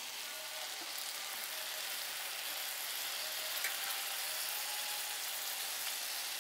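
Seasoned salmon fillet frying in hot olive oil in a pan, a steady high-pitched sizzle.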